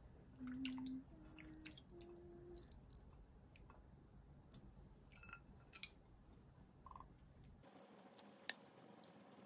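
Near-silent room tone with faint, scattered small clicks and taps, and a few soft low sustained notes in the first two seconds. The low background hum drops away abruptly about eight seconds in.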